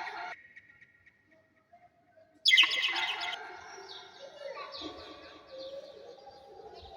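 Small pet parrots chirping: a brief quiet spell, then a sudden loud burst of calls about two and a half seconds in, followed by steady rapid chattering.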